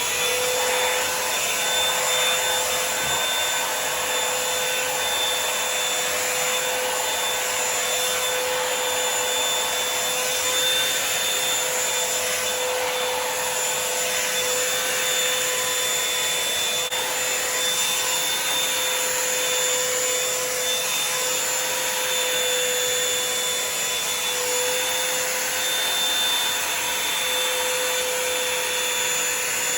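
Revlon One Step Volumizer hot-air brush dryer switched on and running steadily, a constant blowing with a steady motor whine.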